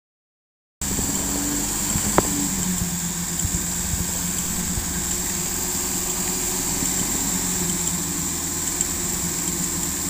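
Off-road vehicle's engine idling steadily, with a single sharp click about two seconds in.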